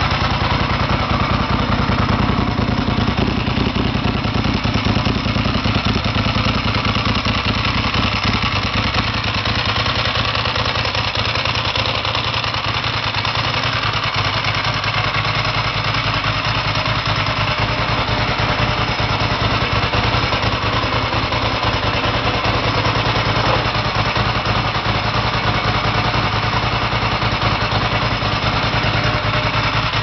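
Ducati Monster S2R's air-cooled L-twin engine idling steadily through a Ducati Performance aftermarket silencer.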